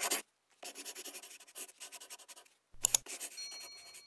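Sound effect of a pen scribbling on paper in quick, scratchy strokes, then a click about three seconds in and a short bell-like chime.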